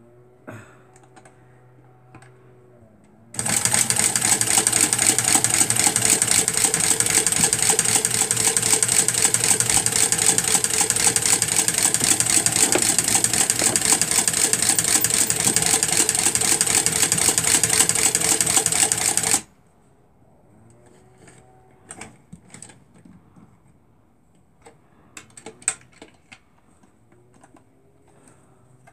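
Singer Tiny Tailor small sewing machine running at a steady speed and stitching through fabric, a fast even mechanical rattle. It starts about three seconds in and stops abruptly some sixteen seconds later, followed by a few light clicks as the machine and fabric are handled.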